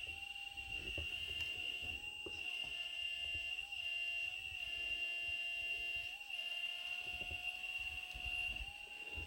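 Electric hydraulic pump of an RC scale construction machine whining steadily. Its lower tone rises briefly several times as the hydraulics take load, over a low rumble.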